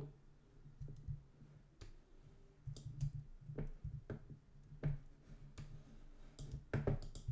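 Irregular clicks of a computer mouse and keyboard, about a dozen scattered over a few seconds, over a low steady hum.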